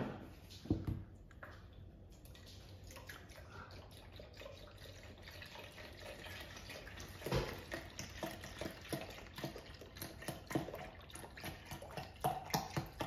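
Soy milk pouring from a carton into a plastic measuring jug: a soft trickle, then from about halfway a run of uneven glugs as the carton is tipped further. A couple of knocks from handling the carton right at the start.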